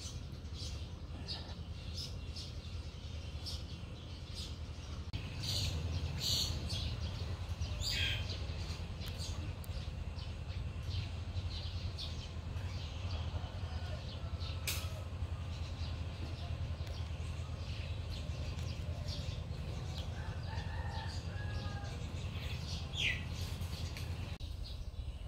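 Outdoor ambience: a steady low rumble with scattered short bird chirps, and a quick falling call about eight seconds in and another near the end.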